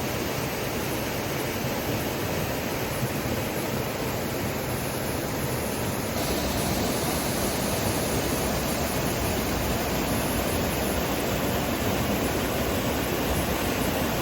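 Small creek waterfall pouring steadily into a rock swimming hole, a continuous rushing of water that gets a little louder about six seconds in.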